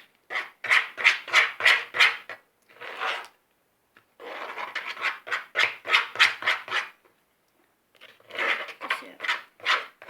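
A spoon scraping around a bowl as a sticky slime mixture of shaving foam, glue and borax is beaten: rhythmic scraping strokes, about three or four a second, in bursts with short pauses between them.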